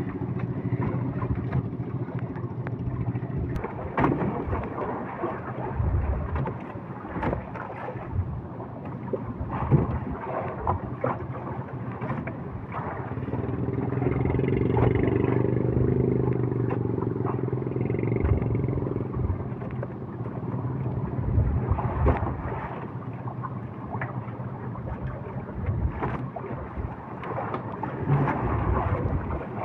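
Small fishing boat's engine running steadily, with scattered knocks and handling noises from gear on the boat.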